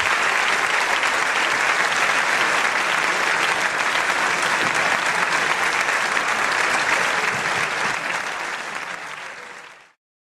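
Audience applauding steadily, a dense even clapping that fades away near the end and then cuts off.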